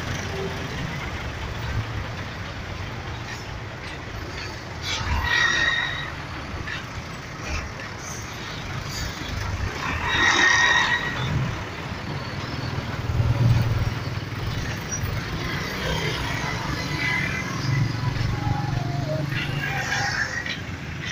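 Jammed road traffic: the engines of buses, cars and trucks run in a steady low rumble, with short horn beeps about five and ten seconds in.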